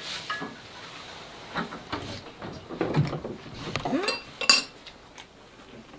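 Chopsticks and a spoon clinking and tapping against ceramic bowls and plates while people eat, with a sharper ringing clink about four and a half seconds in.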